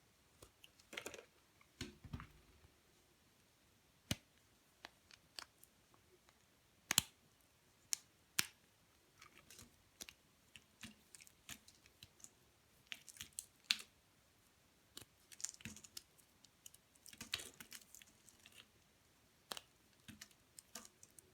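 Dry bar soap being cut: irregular crisp clicks, snaps and short crumbly crunches as pieces break away, with a few louder snaps about seven and eight seconds in.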